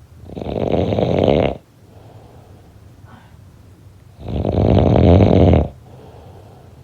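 A person snoring: two loud snores about four seconds apart, each about a second and a half long, with faint breathing between them.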